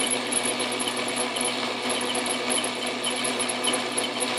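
Atlas metal lathe running steadily, turning a steel shaft, with a steady squeaking and a faint high tick repeating a few times a second. The owner takes the squeaking for a sign that something is not right.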